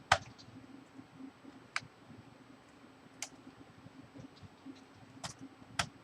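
Sharp plastic clicks and taps as a small Phillips screwdriver pries at a laptop keyboard and its plastic case. There are five separate clicks, the loudest right at the start.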